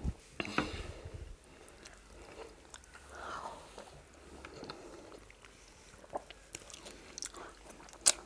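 Mouth sounds of eating fufu with egusi soup: chewing with scattered clicks and smacks, a low knock right at the start and a sharp click near the end.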